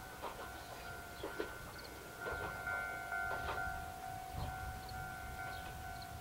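A railway level-crossing alarm ringing steadily, a pulsing two-tone bell, while a diesel railcar rumbles faintly in the distance, with a few light clicks from the track.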